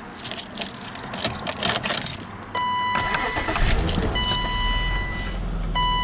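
Keys jangling in the ignition of a 1995 BMW 525i, then the inline-six starts about three seconds in and settles into a steady idle, with a repeating high electronic warning beep sounding over it. This is a test start after a cracked air intake hose causing a vacuum leak was replaced, and the idle speed is back to normal.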